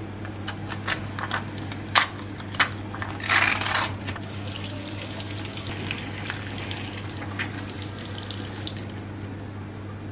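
Tap water running and splashing onto a film negative held under it in a sink, with several sharp clicks and a brief rush of handling noise in the first four seconds. A steady low hum runs underneath.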